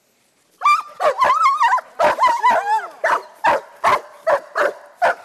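German Shepherd whining and yelping in high, wavering cries, then breaking into steady barking at about two to three barks a second. The dog is worked up and barking at a helper who is agitating it in protection training.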